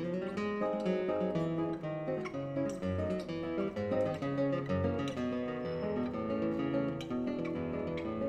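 Outro music on acoustic guitar: a busy run of plucked notes.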